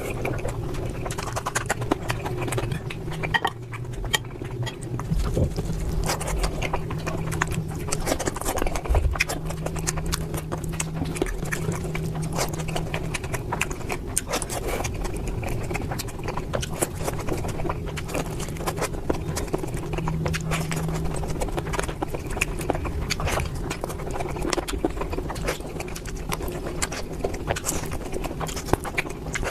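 Close-miked eating: irregular wet chewing and mouth smacking clicks, with a steady low hum underneath.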